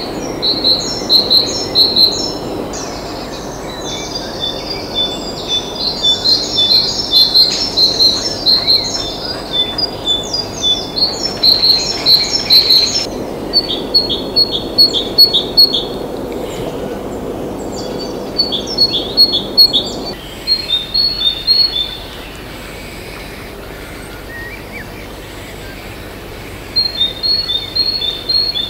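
Small songbirds chirping: rapid runs of short, high notes in repeated phrases, over a steady low hiss of background noise that drops about two-thirds of the way through.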